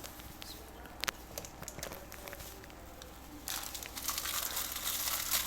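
Crinkling and rustling of disposable supplies being handled, with a few light clicks at first, growing denser and louder about three and a half seconds in.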